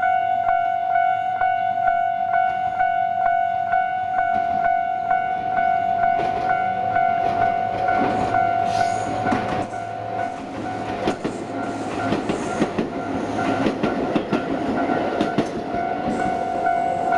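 Japanese level crossing's electronic warning bell at its standard tone, dinging steadily about two and a half times a second. From about six seconds in until near the end a Tobu Isesaki Line train passes, its wheels clattering over the rail joints and partly covering the bell.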